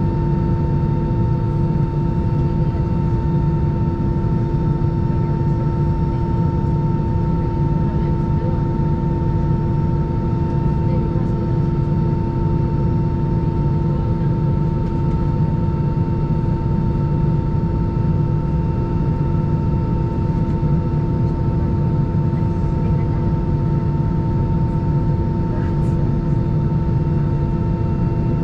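Steady cabin noise inside an Airbus A320 standing at the gate: a low rumble with a constant hum of several steady tones that does not change.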